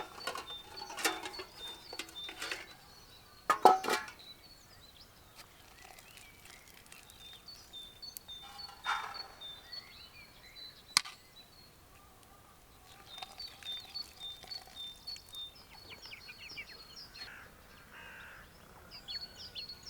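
Small birds chirping in quick repeated trills, with a few short rustling or scraping noises, the loudest about four seconds in, and a sharp click near the middle.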